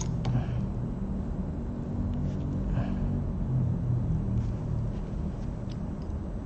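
A steady low rumble, with a few faint light clicks over it.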